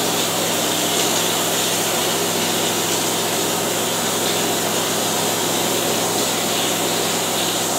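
Texture hopper gun spraying ceiling texture: a steady air hiss, with a steady motor hum underneath.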